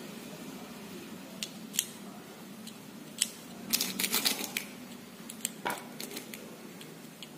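Small sharp clicks and clinks of lead airgun pellets as fingers pick them from a metal pellet tin and push them one at a time into a rotary PCP magazine, with a quick cluster of clicks about four seconds in.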